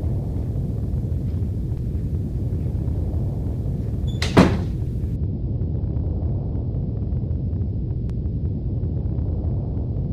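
A panelled interior door slams shut once, about four seconds in, over a steady low rumble.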